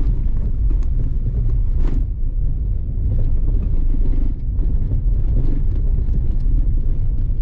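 Steady low rumble of a motorcycle on the move, with wind buffeting the rider's microphone.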